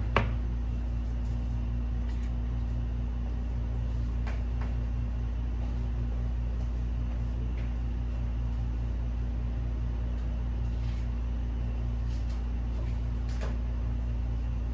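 A single light knock right at the start as an iPhone 12 is set down into its cardboard box tray, over a steady low hum; a few faint ticks follow later.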